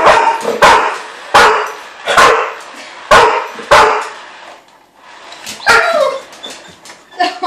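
A dog barking repeatedly at spinning kitchen utensils: six sharp barks in quick succession, then after a short pause a few softer, yelping barks.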